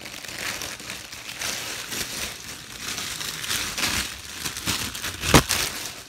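Plastic packaging crinkling and rustling as a pop-it fidget toy is opened, with one sharp click about five seconds in.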